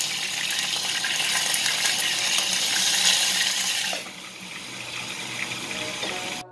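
Tomato and chillies sizzling in hot oil in a small pot. About four seconds in the lid goes on and the sizzle turns quieter and muffled.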